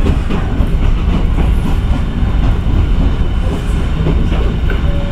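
Sangi Railway passenger train running, heard from on board: a steady low rumble of wheels on rails, with occasional clacks over rail joints.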